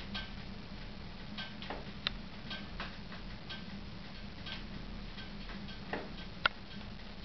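Woodstove with a fire going, giving irregular sharp ticks and pops, one or two a second, with a louder snap about six and a half seconds in, over a steady low hum.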